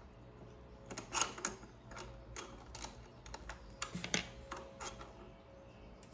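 Irregular light clicks and taps, about a dozen, as the bolts on a bicycle handlebar stem's faceplate are worked loose by hand and tool.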